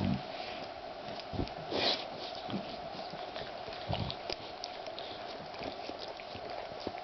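Pet animals snuffling and sniffing, with small wet clicks at uneven intervals and a louder sniff about two seconds in, over a steady faint hum.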